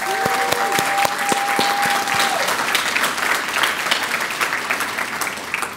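Audience applauding, a dense spread of many hands clapping that tapers off near the end. A steady high held tone sounds over the clapping for the first two seconds or so.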